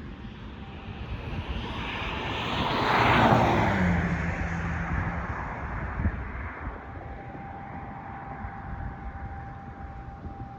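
A vehicle passes by, loudest about three seconds in, its low pitch dropping as it fades away. As it fades, a constant thin, high alarm-like tone from the school's heating system stands out and holds steady.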